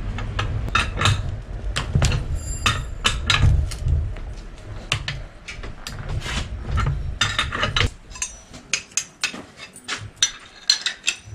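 Metal tools and bicycle parts clinking and knocking in irregular sharp taps as a bottom bracket is dismantled. A low rumble runs underneath and stops about eight seconds in.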